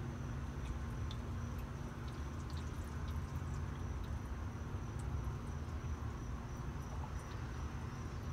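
Outdoor ambience after a thunderstorm: a low rumble of wind on the microphone under a steady high-pitched insect trill, with a few faint clicks.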